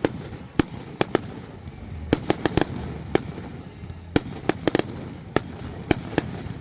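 Fireworks going off: a string of sharp bangs at irregular intervals, several times two or three in quick succession, with a steady rumble underneath.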